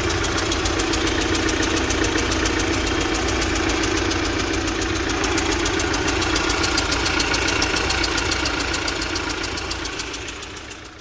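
UMZ-4216 (Evotech 2.7) four-cylinder petrol engine running with a rapid, even ticking knock, about seven ticks a second. The owner takes it for a loose intake valve seat in the first cylinder, most likely. The sound fades out near the end.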